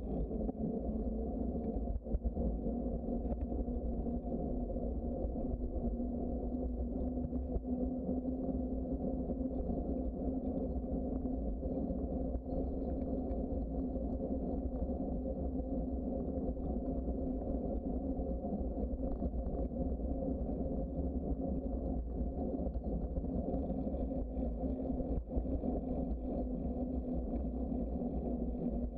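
Steady rush and rumble of a bicycle rolling along a paved trail: wind on the microphone and tyre noise, with a constant low hum and a few faint knocks from bumps.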